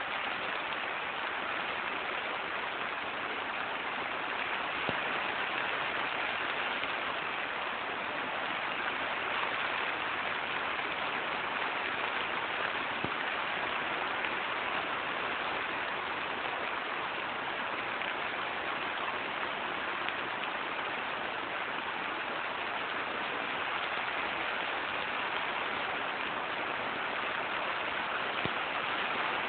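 Steady rain falling on a greenhouse: an even hiss of drops that holds level throughout, with a few faint separate drop ticks.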